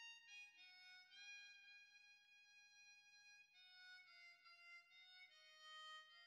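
Faint background music: a slow harmonica melody of long held notes.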